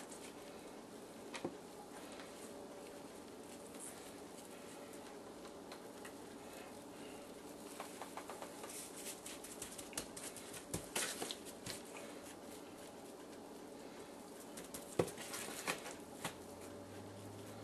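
Dry barbecue rub being sprinkled onto raw chicken pieces as they are handled: a faint patter with scattered light taps, busiest about halfway through and again near the end, over a faint steady hum.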